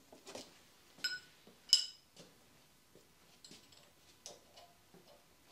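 Steel wrench clinking on the rocker-arm adjusting nuts of a Pontiac V8 valve train: two sharp ringing metal clinks under a second apart, the second louder, then a few faint light clicks.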